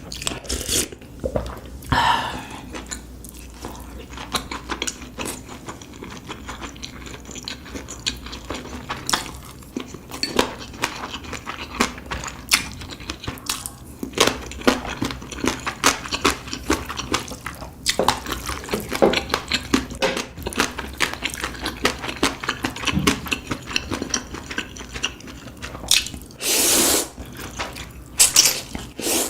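Close-miked eating sounds: many quick wet clicks and smacks of food being chewed, with one longer, louder wet sound near the end.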